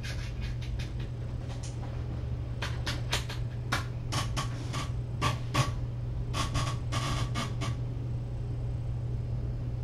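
A run of light, irregular clicks, about a dozen over five seconds, over a steady low hum.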